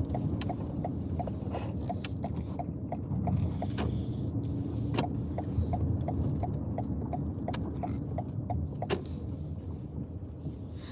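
Car cabin noise while driving: a steady low road and engine rumble, with the turn-signal indicator clicking evenly about three times a second. The clicking stops near the end. A few light knocks sound along the way.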